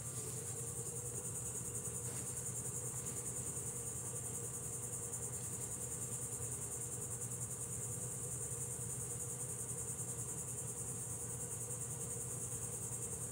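Insects singing in a steady high-pitched chorus, with a faint low hum underneath.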